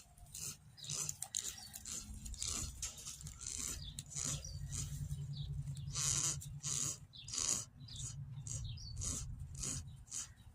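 Goats feeding: many short, irregular crunching and rustling sounds, over a low steady hum.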